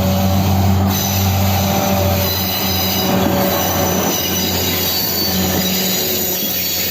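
Diesel-hauled freight train passing at close range, its wheels squealing thinly on the rails over a steady low engine hum.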